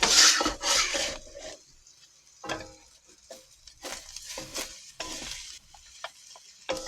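Cooking utensil scraping and stirring food in a wok. There is one long scrape at the start, then a run of shorter scrapes and knocks, some with a faint metallic ring.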